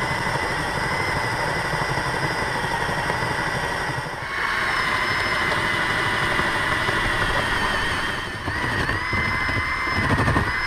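Cordless drill running steadily, its motor whining as it bores a 3/4-inch hole through the wooden side board of a raised garden bed. The whine dips briefly twice, about four and eight and a half seconds in.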